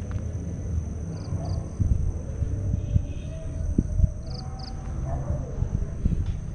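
Night insects calling: a steady high drone with a short double chirp repeating about every three seconds, over low rumble and uneven knocks from a hand-held camera carried on foot across grass.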